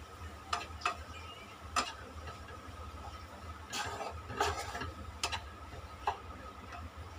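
A wooden spoon stirring grated beetroot in a nonstick kadai, scraping and knocking against the pan in scattered strokes, a cluster of them about four seconds in, over a faint steady hum.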